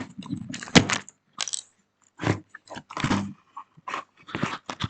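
Outemu Blue clicky switches on a mechanical keyboard being pressed in an irregular run of sharp clicks, with short pauses between bursts.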